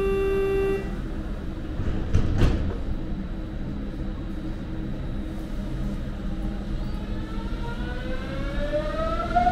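Berlin S-Bahn electric train: a pitched tone ends just under a second in, then a short knock, like sliding doors shutting, about two seconds in. Over steady running noise, from about seven seconds in, the traction motors whine, rising steadily in pitch as the train accelerates away.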